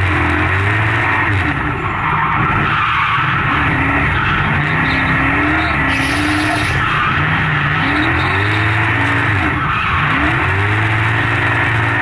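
Modified Chevrolet LS1 V8 (about 600 hp) in a BMW E36 drift car, heard from inside the cabin, revving up and down repeatedly while the rear tyres squeal and skid through a drift.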